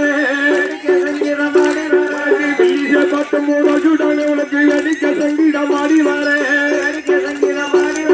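Villu pattu troupe playing a kummi dance tune: a pitched melody moving in short repeated phrases over jingling bells and percussion strokes.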